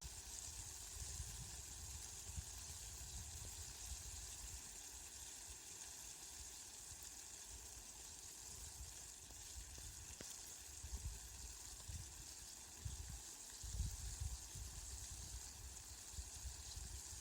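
Steady rain falling, an even hiss, with a low rumble underneath that comes and goes and is strongest in the later part.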